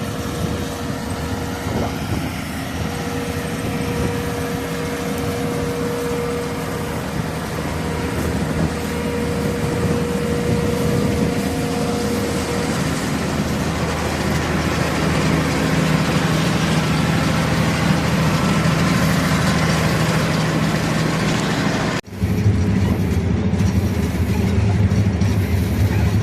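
The KZS-812 combine harvester's D-260 inline-six diesel engine running, freshly rebuilt with a new cylinder group after water got in through the sixth cylinder. It is being tried out under work and grows gradually louder. Near the end it cuts suddenly to another stretch of the machine running.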